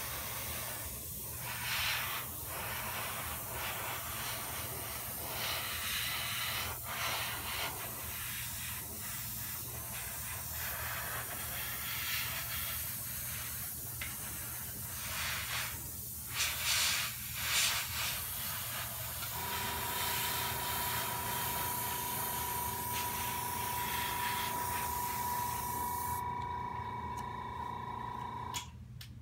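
Iwata airbrush spraying paint: a steady hiss of air that swells and fades as the trigger is worked. About two-thirds of the way through, a steady humming tone joins in, and the hiss stops shortly before the end while the hum carries on.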